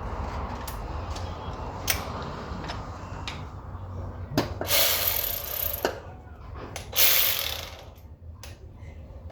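Hand socket ratchet clicking on a bolt, with scattered metal clicks and two longer runs of ratcheting about halfway through.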